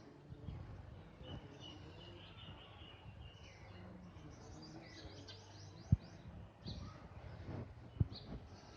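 Green parrot chirping in short high calls, with a quick run of chirps midway. Two sharp knocks, about six and eight seconds in, are the loudest sounds, over a low steady hum.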